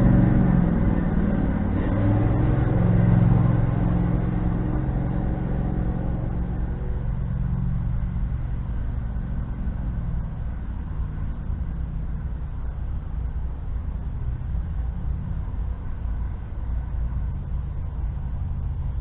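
Husqvarna riding tractor's engine running with a broken exhaust. It runs loudest in the first few seconds, then eases down over several seconds and settles into a steadier, quieter run.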